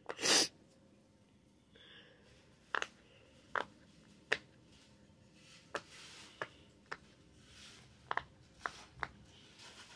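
Bubbles of a silicone pop-it fidget toy being pressed by fingers: about ten short, sharp pops at uneven intervals, after a brief louder burst of noise at the very start.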